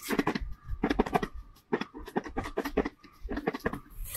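Lidded plastic bowl shaken by hand in a rhythmic series of strokes, its contents rattling and scratching against the sides.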